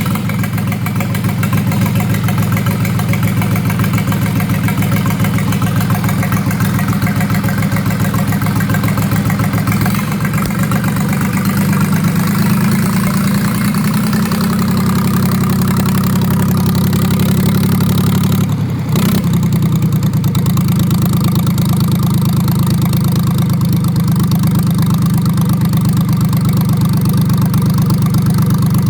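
Bukh DV36 36 hp marine inboard diesel engine idling steadily just after starting, with a brief dip in its sound about 19 seconds in.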